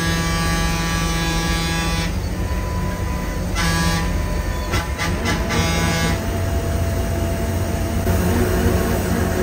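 Vehicle horn held in one long blast until about two seconds in, then a short blast and a quick run of short toots, over the steady low rumble of a bus engine in slow traffic.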